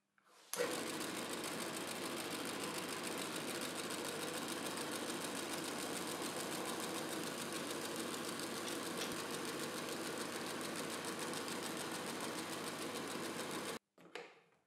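Homemade plywood belt sander running, its sanding belt driven by the lathe's electric motor, with a steady, even whir. It starts abruptly and cuts off suddenly near the end.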